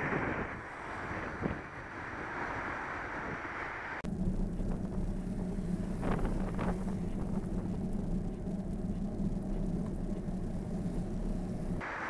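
Wind rushing over a bike-mounted camera's microphone while riding. About four seconds in, the sound cuts abruptly to a steady low hum with passing traffic, and the wind noise returns near the end.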